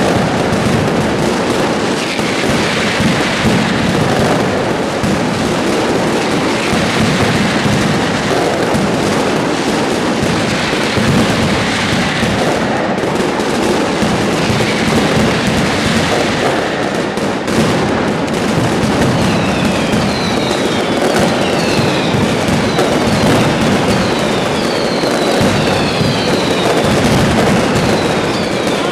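Mascletà firecrackers bursting in a dense, unbroken barrage of loud bangs and crackling. From about two-thirds of the way in, repeated falling whistles sound over the bangs.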